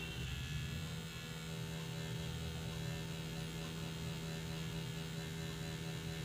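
Electric tattoo machine running with a steady, even hum as its needle fills in lettering on artificial practice skin.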